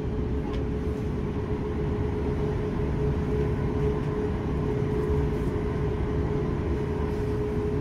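Steady cabin noise inside a parked Boeing 737 MAX 9: the rush and low rumble of the air-conditioning ventilation, with a constant mid-pitched whine.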